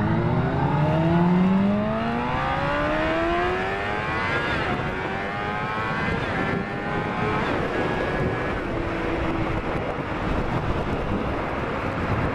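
Sport bike engine heard from the rider's seat, accelerating with its note climbing through a gear, shifting up about four and a half seconds in and climbing again. It then settles to a steady cruise, mostly buried under wind rush.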